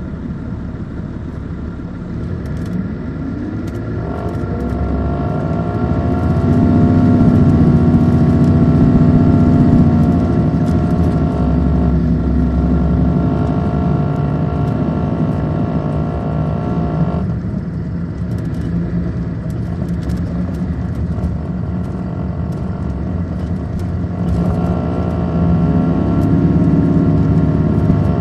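Caterpillar C13 diesel engine of an MCI D4500CL coach accelerating, its pitch rising over a few seconds, then running loud and steady under load. The upper engine tone drops away about seventeen seconds in and comes back near the end as the bus pulls again.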